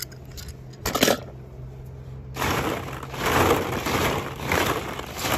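Crunching and scraping handling noise of rummaging through the play area to find the next toy car, starting about two and a half seconds in and rising and falling in loudness, with a single sharp click about a second in.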